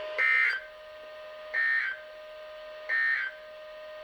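Emergency Alert System end-of-message signal from NOAA Weather Radio: three identical short two-tone digital data bursts, evenly spaced about a second and a half apart, marking the end of the severe thunderstorm warning. A faint steady tone runs underneath between the bursts.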